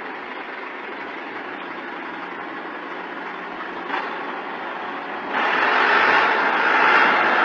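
Heavy machinery engine running steadily, with a brief knock about four seconds in and a sudden jump to louder, brighter noise about five seconds in.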